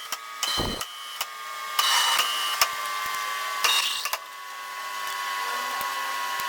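Metalworking machinery running with a steady high whine, many sharp clicks, and short bursts of mechanical noise about half a second, two seconds and three and a half seconds in.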